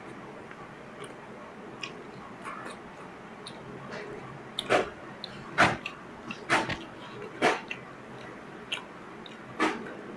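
Eating rice and dry fish curry by hand from a steel plate: faint chewing and mixing, then, from about halfway through, a run of short, sharp, loud sounds roughly a second apart.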